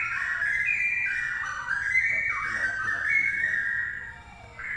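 Straw-headed bulbul (cucak rowo) singing: a rapid run of loud, fluty whistled phrases that jump up and down in pitch, easing off briefly near the end before starting again.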